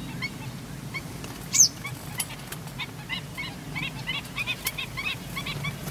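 Marsh wildlife calling: a rapid string of short, repeated call notes, with one sharp, high, falling note about one and a half seconds in, over a steady low hum.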